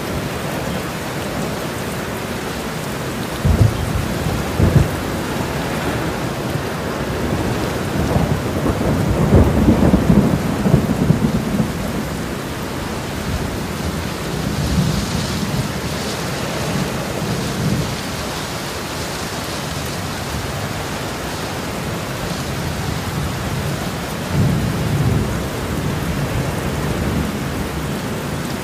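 Steady rain falling, with low rolls of thunder several times; the loudest roll comes about a third of the way in.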